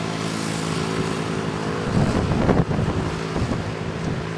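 Wind buffeting the microphone in irregular gusts from about two seconds in, over a steady low hum.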